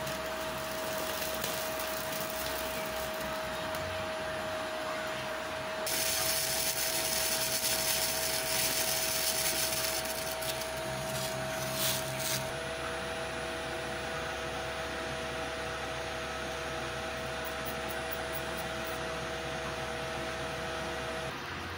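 Steady whine and hum of a homemade induction heater powered by an inverter welding machine, running under load. From about six to twelve seconds in, a louder hiss rises over it as liquid boils in a steel spoon held in the work coil. The whine cuts off just before the end.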